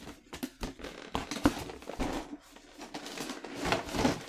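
Action figure packaging being opened and handled: irregular rustling, crinkling and small plastic clicks.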